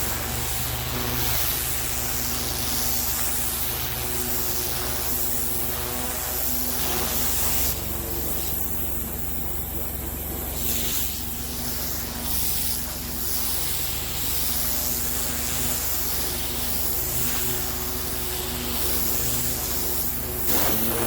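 High-pressure water jet from a pressure washer lance hissing steadily against a paved driveway while its edges are cut in, over the steady hum of a fuel-powered pressure washer engine. The spray dips briefly about eight seconds in.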